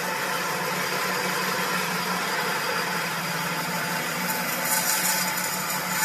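Pallet dismantling saw machine running steadily, a constant hum under even mechanical hiss, with the high hiss growing brighter for about a second near the middle.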